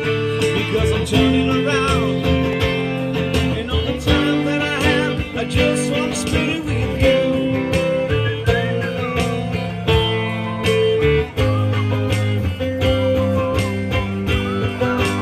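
Live performance of a song: guitar over a steady beat, with a wavering lead melody line.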